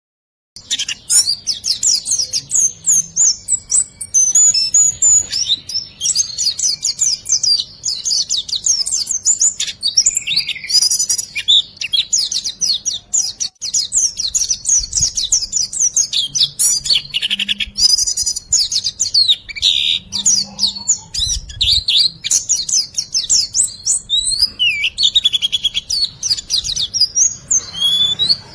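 Songbird singing a fast, continuous song of high chirps and trills packed with riwik-style calls, played as a song-training track for cage birds. It starts suddenly about half a second in.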